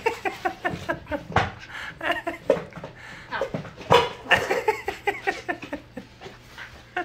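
Pembroke Welsh Corgi puppies yipping and whining at play, short high calls coming a few times each second.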